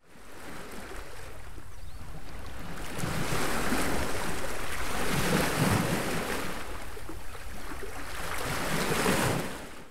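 Sea surf: waves washing in, swelling and easing in slow surges, fading in at the start and dying away near the end.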